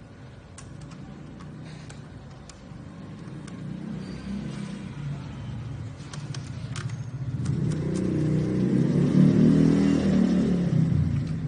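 A motor vehicle engine, growing louder through the second half and easing off near the end. Scattered light clicks come earlier, from the heat shield and its clamp being handled.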